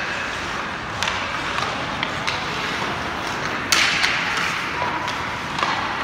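Ice hockey play: skates scraping on the ice with sharp clacks of sticks and puck. A louder bang about three and a half seconds in echoes through the arena.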